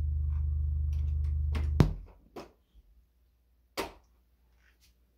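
Very low-frequency test tone played through a DCM TP160S-CH bookshelf speaker's 6.5-inch woofer to work the woofer in: a loud, steady, deep hum with buzzy overtones. It cuts off with a click a little under two seconds in, and two more sharp clicks follow.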